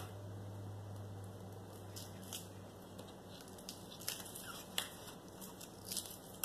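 Light tableware handling at a breakfast table: a few scattered clicks and taps as a hand works at food on paper plates, over a steady low hum.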